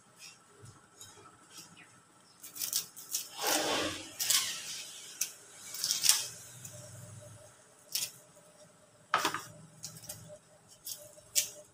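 A knife and raw ingredients being handled on a chopping board: scattered sharp clicks and taps, with a longer scrape a few seconds in.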